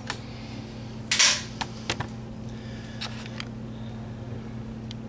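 Camera handling noise: a few sharp clicks and taps scattered through, with a brief rustle about a second in, over a steady low hum.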